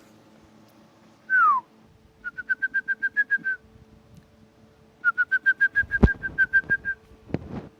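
A man whistling to call his dogs: one short falling whistle, then two runs of quick repeated whistle pips at one pitch, about eight a second. A single thump comes near the second run.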